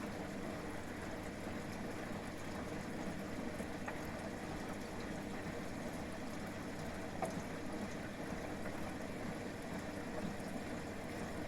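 Washing machine filling with water at the start of a hot cleaning cycle: a steady rush of water into the drum.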